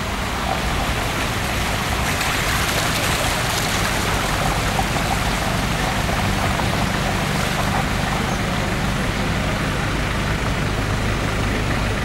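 Engine running steadily with a low hum and a steady hiss of noise over it, from the moving vehicle carrying the recorder.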